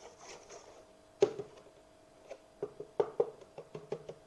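Plastic housing of an OOKAS ceiling exhaust fan knocking and clicking as it is handled and turned over: a sharp knock about a second in, then a run of lighter taps and clicks.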